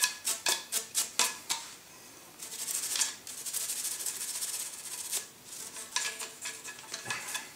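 An old toothbrush scrubbing the oiled ejectors at the breech of a Browning 325 shotgun's barrels in quick back-and-forth strokes, with a short lull about two seconds in. The scrubbing clears fouling and bits of shell copper from around the ejectors.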